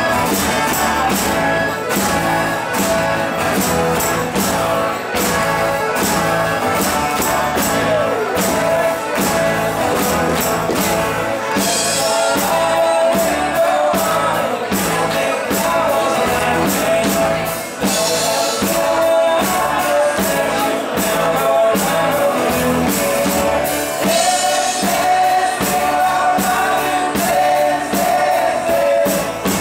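A live rock band playing a song: sung vocals over electric bass, electric guitar and a steady drum beat.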